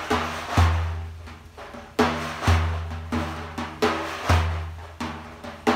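Daf, a large Persian frame drum with metal rings lining the inside of its frame, played by hand. Deep booming open strokes come about every two seconds with lighter taps between them, and the rings jingle like a shaker after each stroke.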